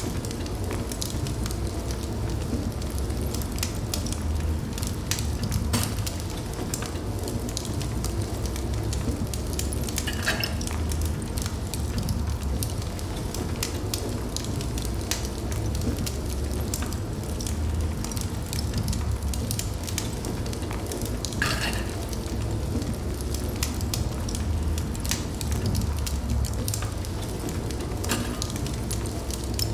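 Wood fire burning in a fireplace: a steady low rumble of flames with frequent small crackles and pops. Two short hisses come through, about a third of the way in and again about two-thirds in.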